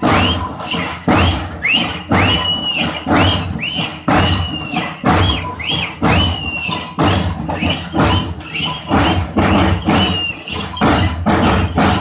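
Folk drums beating a steady dance rhythm, about two strokes a second, with a high piping tone that rises and then holds or falls over many of the beats.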